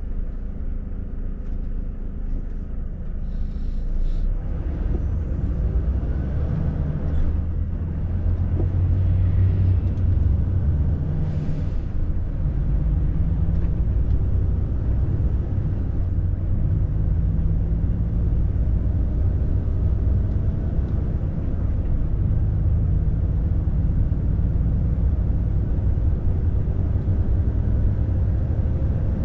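Volvo FH truck's diesel engine heard from inside the cab, a low steady drone that grows louder about four seconds in as the truck pulls away and accelerates, with the pitch climbing and dropping back through several gear changes. Two brief hisses of air, about four and eleven seconds in.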